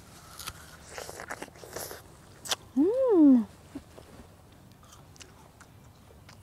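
Crisp crunching as a bite is taken from a fresh, juicy pear and chewed, with a sharp click about two and a half seconds in. Right after comes a short voiced hum that rises and falls in pitch, the loudest sound.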